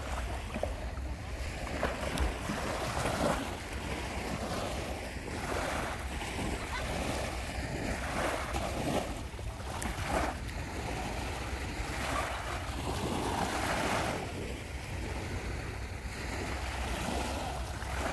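Small waves lapping along a beach, with wind buffeting the microphone as a steady low rumble.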